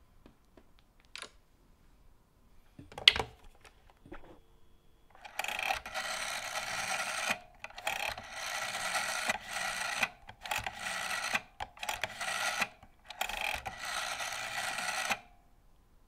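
GPO 776 rotary dial telephone: a sharp click as the handset comes off the cradle about three seconds in, then the dial wound round and let run back for several digits in a row, each return a rasping whirr of a second or two with short pauses between digits.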